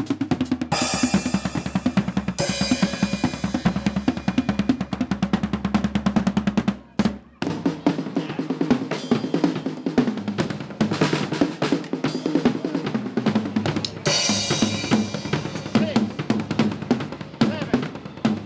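Drum kit played in a fast solo of snare and tom rolls over bass drum, with cymbal crashes about a second in and again about fourteen seconds in. The drumming drops out for a moment about seven seconds in, then picks up again.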